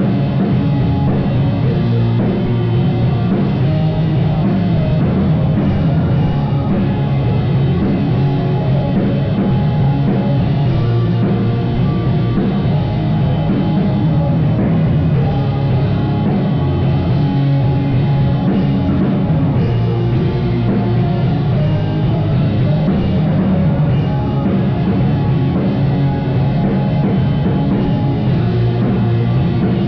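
Live rock band playing loud, with drum kit and distorted guitars, in a heavy, driving instrumental stretch.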